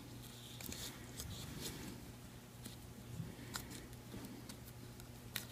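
Faint rustling and small scattered ticks of a thin cardstock strip being wrapped and tied around a paper bouquet, over a low steady hum.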